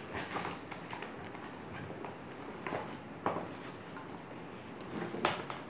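Cardboard toy box and plastic blaster parts being handled and shifted: scattered light knocks and rustling, with a sharper knock about three seconds in and another near the end.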